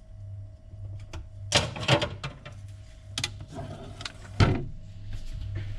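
Kitchen things being handled on a counter: a few sharp knocks and clatters, about a second and a half in, near the middle and near the end, over a steady low hum.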